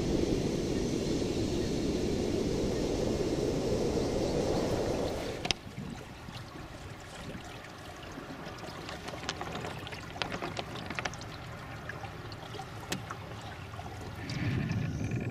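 A steady rushing noise that cuts off suddenly about five seconds in, then water trickling and lapping against the hull of a small wooden sailing pram under way, with scattered light ticks.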